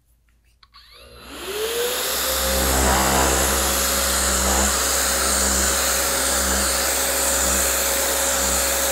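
A 3×4-inch rectangular random orbit sander and its tool-actuated dust-extraction vacuum starting up together, with a few clicks, then a rising whine about a second in that settles into a steady hum over a rushing airflow hiss and a low rumble. The sander runs at slow speed, its sponge pad scuffing the finish on a door's rounded edge between coats.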